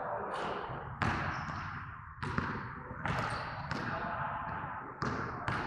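Repeated sharp thuds at uneven intervals, about six in all, each followed by a short echoing tail, with faint voices underneath.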